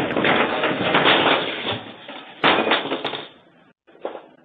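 Crash and clatter of ceiling panels and debris falling onto a wooden floor, ending in a sharp bang about two and a half seconds in, after which it goes quiet.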